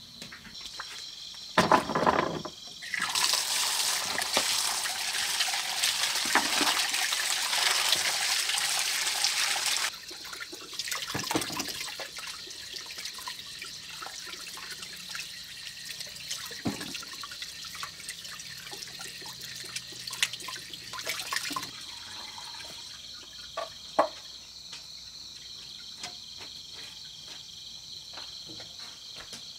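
Water running or pouring for about seven seconds, starting just after a clunk, then scattered knocks and clatter. Crickets chirp steadily throughout.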